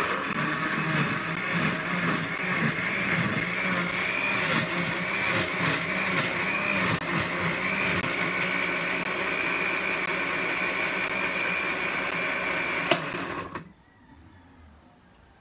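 Electric countertop blender running, its blade whirring through cucumber pieces and water as they turn to a smooth puree, with a steady motor whine. Near the end there is a sharp click and the motor cuts off.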